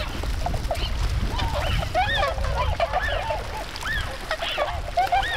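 A flock of tundra swans (Bewick's swans) calling: many short honks that rise and fall, overlapping one another.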